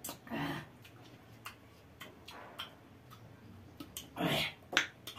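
Close mouth sounds of people eating sour lemon slices: wet lip smacks and tongue clicks throughout, with two longer, louder sucking sounds, about half a second in and just after four seconds.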